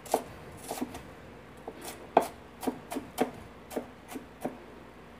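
A kitchen knife chopping onion on a cutting board: a series of irregular sharp knocks, about three a second, that stop near the end.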